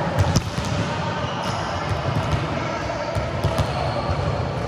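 Volleyballs bouncing and being struck in a large indoor sports hall, heard as a few sharp, short knocks over a busy hall background.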